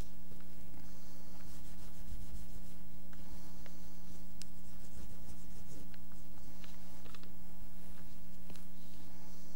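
Oil pastel being worked on paper: scratchy, irregular strokes and rubbing across the sheet, over a steady low hum.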